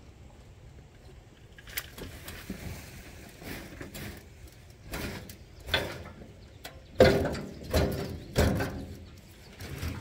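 Compost sliding and tumbling out of a tipped poly wheelbarrow tray into a dug hole, with scraping and knocking, and a run of heavy thuds about two-thirds of the way through as the last of the load comes out.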